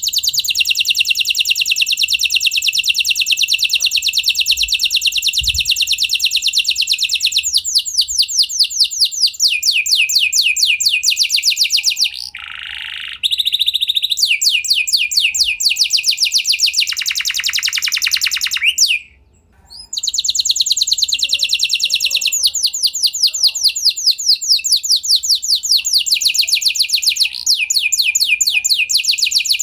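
An F1 domestic canary singing: long runs of fast, high trills that change phrase now and then, with a lower note briefly near the middle and a short pause about two-thirds through.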